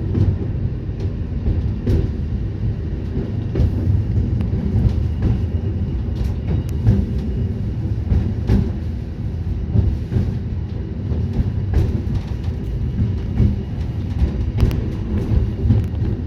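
Train running along the track: a steady low rumble with short sharp clicks and knocks scattered irregularly through it.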